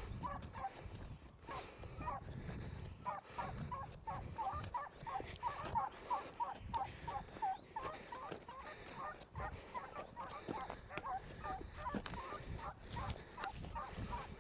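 A pack of beagles baying as they run a rabbit track, short barking calls coming several a second and overlapping throughout.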